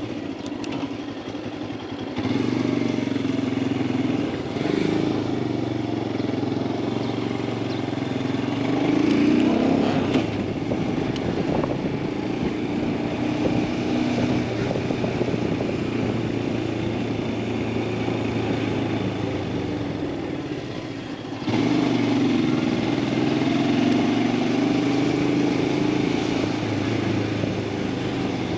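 Royal Enfield Himalayan 411's single-cylinder engine running under way, its pitch rising and falling a few times with throttle changes. It gets suddenly louder about two-thirds of the way in.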